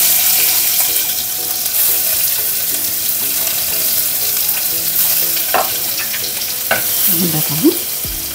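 Chopped garlic sizzling in hot oil in an aluminium pan, dropped onto crackled mustard and cumin seeds as the tempering (phodni) for a dal. The steady sizzle begins loud, and a spoon stirring it gives a few light ticks in the second half.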